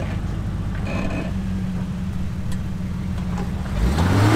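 Jeep Comanche pickup's engine running at low revs under load as it crawls up a rock ledge, then revving up sharply near the end.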